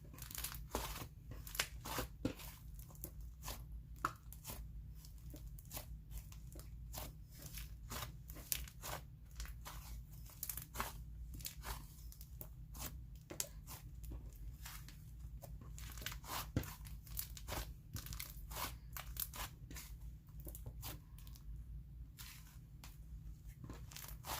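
Thick, inflated butter slime being worked and squeezed by hand, giving a dense run of irregular crackling sizzles and small pops as trapped air is pressed out.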